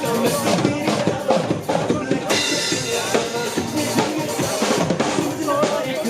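Music led by a drum kit, with bass drum and snare hits keeping a steady beat.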